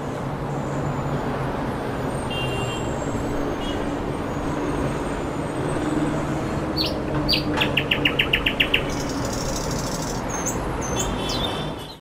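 Town street ambience: a steady traffic rumble with songbirds chirping over it, including a quick trill of about eight notes a little past halfway.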